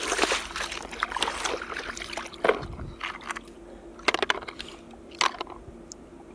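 Water sloshing and splashing as plastic toy vehicles are washed, then a few separate light knocks and clicks of plastic in the second half.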